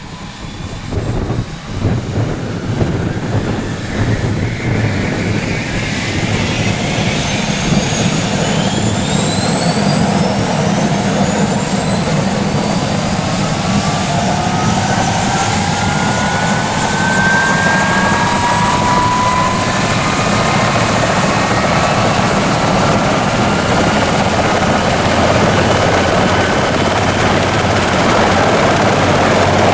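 Bell 412 helicopter's twin turboshaft engines whining as they spool up. Several whines rise in pitch, one levelling off into a steady high tone, over a dense mechanical din that grows steadily louder.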